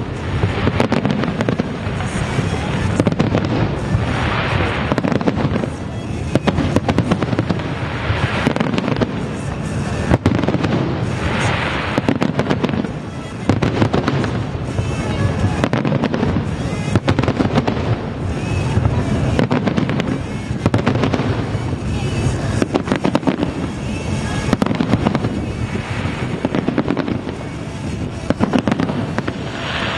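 Aerial fireworks display: a dense, continuous barrage of shells bursting with many sharp bangs, and several swells of crackling.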